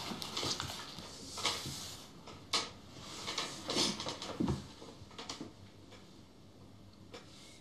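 Paper being handled and folded on a wooden table: scattered soft rustles with a few light knocks, thinning out in the last couple of seconds.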